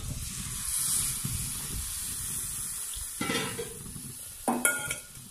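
Tamarind water poured into a hot steel pan of fried onion, tomato and chilli-powder masala, sizzling sharply as it hits, then settling to a fainter sizzle while it is stirred with a steel spoon.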